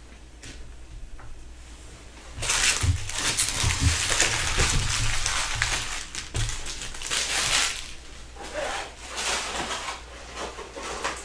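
Empty foil trading-card pack wrappers being scooped up and crumpled by hand: loud crinkling for about five seconds starting a couple of seconds in, then a few shorter, softer rustles.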